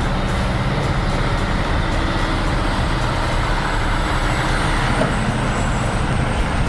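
Heavy logging truck's diesel engine running steadily under way, with road and drivetrain noise and a faint high whine through the middle.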